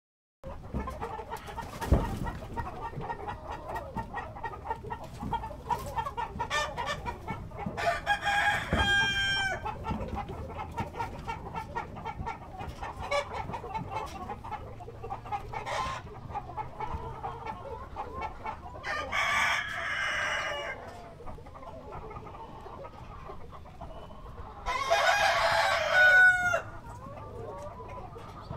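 A flock of chickens clucking continuously, with a rooster crowing three times: about eight seconds in, about two-thirds of the way through, and near the end. A short thump about two seconds in.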